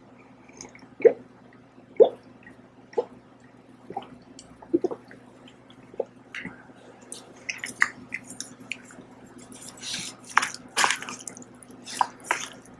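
Milk gulped down from a glass, one swallow about every second for the first five seconds, then wet lip and mouth smacks with a few sharper clicks.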